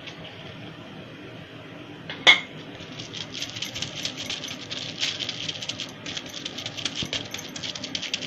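A sharp clink about two seconds in, then hands patting and pressing a round of pumpkin dough flat on a plastic sheet: a quick, uneven run of crinkling taps.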